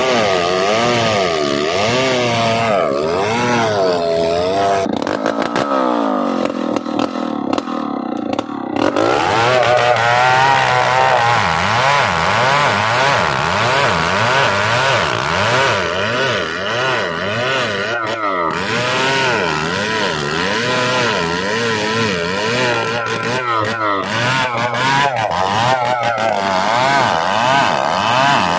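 Chainsaw cutting into a large ironwood trunk, its engine note wavering up and down under load. About six seconds in it sags and goes quieter, then revs back up near nine seconds and carries on cutting.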